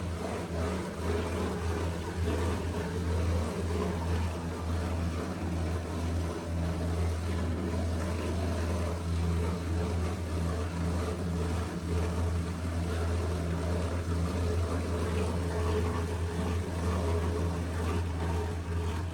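Electric meatball-dough grinder (Agaso bakso machine) running steadily, its motor humming evenly under the churning of meat and ice into bakso dough.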